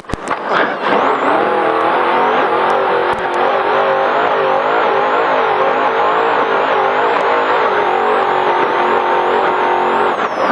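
Trophy Truck's race engine held at high revs under sustained throttle, its pitch wavering slightly, then dropping as the throttle is lifted near the end. A sharp knock right at the start.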